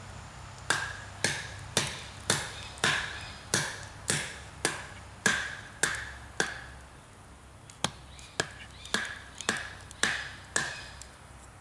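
Chopping: a run of sharp strikes, about two a second, each with a short ring, then a brief pause and a second, shorter run of strikes.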